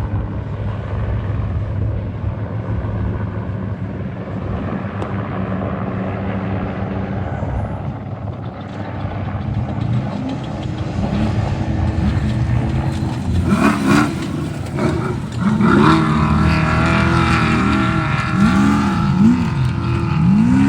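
Trophy truck engine running, at first a steady drone, then from about halfway revving up and down again and again, the pitch swelling and falling in quick repeated arcs.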